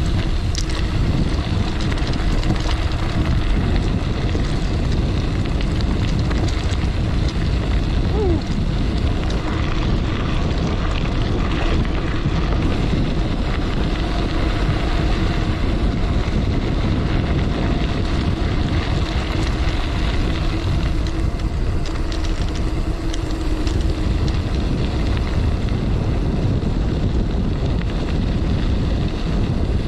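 Steady wind rush on the microphone over the rumble of a gravel bike's 650b knobby tyres rolling on a dirt and gravel road at speed.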